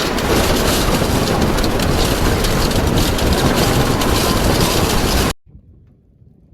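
Loud, steady rushing storm noise that cuts off abruptly about five seconds in.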